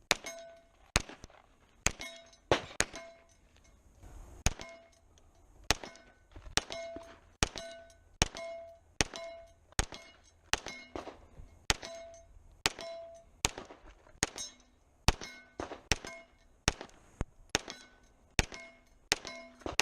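Pistol shots fired in quick, irregular strings, more than twenty in all, many followed by the short metallic ring of steel targets being hit.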